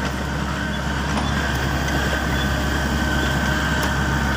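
Tatsuo JP80-8 excavator's diesel engine running steadily while it digs, with a thin steady high tone above the engine note.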